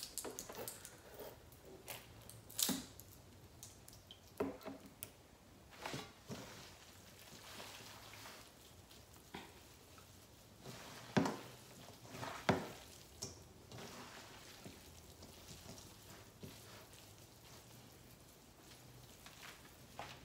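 Gloved hands tossing shredded pulled pork with juices and barbecue sauce in a stainless-steel bowl: soft wet squishing with scattered clicks and knocks. The loudest are two sharp knocks a little over a second apart about halfway through.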